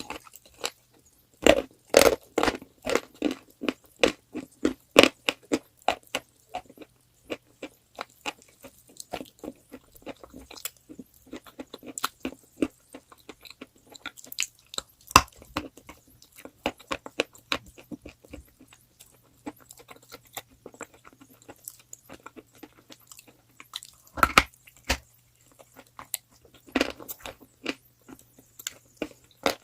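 Close-up crunching of chalk being bitten and chewed. There is a fast run of crunches in the first few seconds, then slower scattered crunches, with loud single bites about 15, 24 and 27 seconds in.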